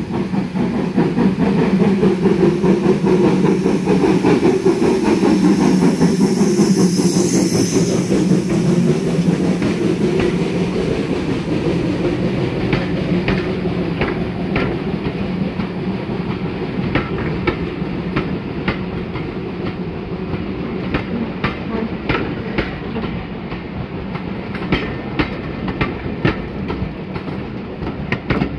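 Steam locomotive 4015 Karel pulling a train away, loudest as the engine passes about six seconds in. Then the coaches roll by, their wheels clicking in pairs over the rail joints, and the sound slowly gets quieter.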